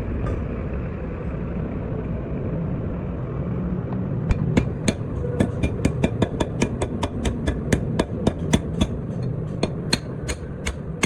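Hammer blows on metal, quick sharp strikes about three a second that begin about four seconds in, over a steady low rumble.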